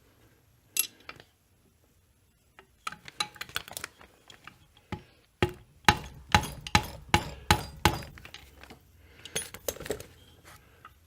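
Hammer tapping a metal punch to drive pins out of a chainsaw crankcase, sharp metallic clinks with a little ring. One strike comes about a second in, then lighter taps, then a run of harder blows at about three a second, and a last cluster near the end.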